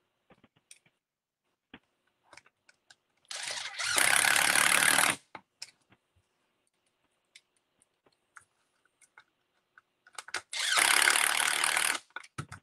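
Cordless electric screwdriver driving screws into a stiff plastic gearbox bulkhead: two runs of about two seconds each, several seconds apart, with small clicks of parts and tools being handled between them.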